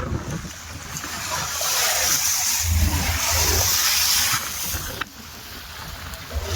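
Rushing, splashing sea water with a low rumble underneath. It swells through the middle and drops off sharply about five seconds in.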